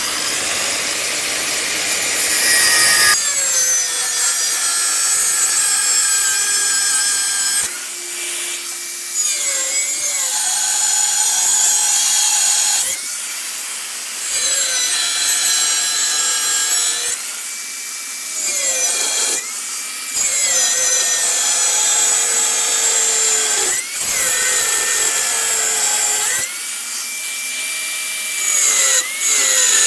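Power tool cutting through steel blade stock: a loud, steady grinding hiss with a motor whine that dips in pitch under load and recovers every few seconds, with short lulls between cuts.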